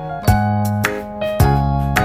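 Background music: plucked and keyboard notes struck in a steady beat, about two a second.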